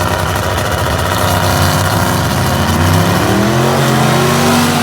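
Loud drag-race car engine running under load, its pitch climbing over the last two seconds as it accelerates.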